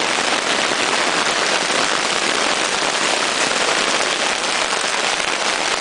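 Hail mixed with rain pelting down hard, a dense, steady patter of countless small hits.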